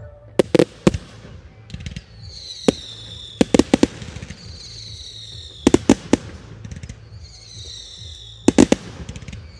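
An aerial fireworks display: shells burst in sharp bangs, singly and in quick clusters of two to four, about every two to three seconds. Between the bangs, high whistles slowly fall in pitch.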